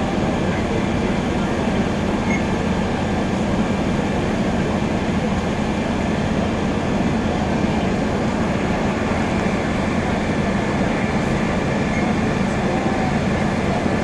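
Fire engines running, a constant low drone.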